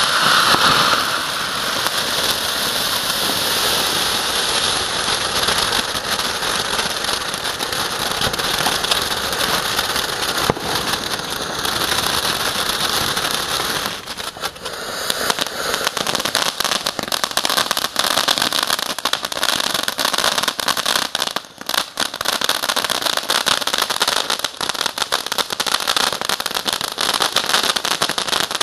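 Ground fountain firework spraying sparks: a steady loud hiss thick with rapid crackles. It briefly weakens about 14 seconds in and again about 21 seconds in.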